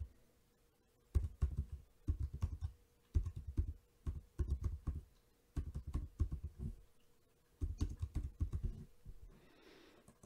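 Typing on a computer keyboard: quick runs of key clicks in several bursts separated by short pauses, stopping near the end.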